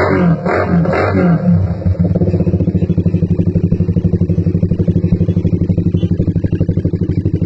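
Background guitar music cuts off about two seconds in. A Suzuki Raider 150, single-cylinder four-stroke, then idles steadily through an aftermarket CHA exhaust with an even, rapid exhaust pulse.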